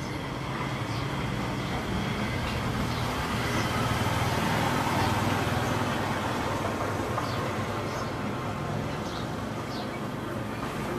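Road traffic: a passing vehicle's engine and tyre noise, growing louder toward the middle and then fading, with faint short high chirps now and then.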